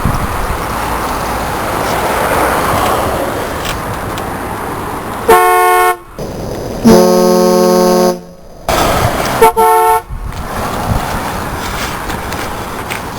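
Car horn sounding three blasts: a short one about five seconds in, a longer and lower one a second later, and another short one near ten seconds, over a steady background hiss.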